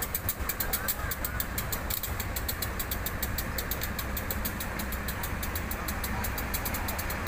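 Diesel locomotive engine running with a steady low rumble, mixed with the continuous rolling noise of a passenger train passing on the next track.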